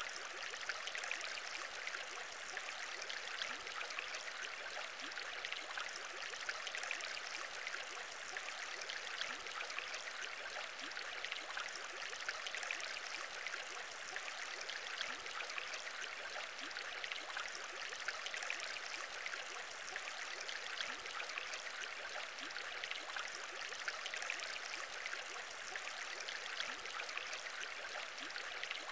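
Steady aquarium bubbling: many small bubbles at once, a dense continuous fizz of tiny pops.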